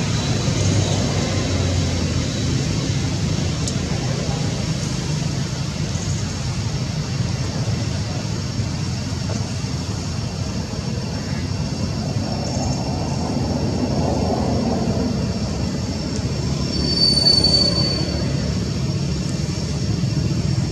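Steady low rumble of background noise with faint thin high tones above it, and a brief high squeal about three-quarters of the way through.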